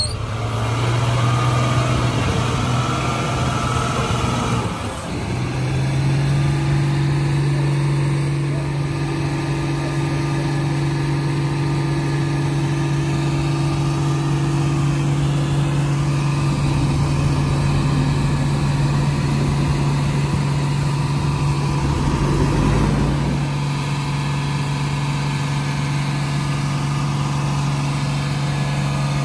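Heavy diesel engines running steadily with a low drone: a loaded Tata tractor-trailer crawling through deep mud while a backhoe loader pushes at the trailer's rear. The engine note shifts about five seconds in and again a little past twenty seconds.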